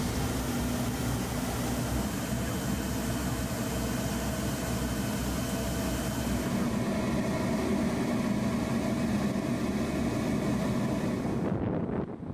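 LCAC hovercraft's gas turbines and fans running at speed: a steady, dense mechanical drone with a held low hum. The sound shifts about halfway through, and the hiss falls away abruptly just before the end.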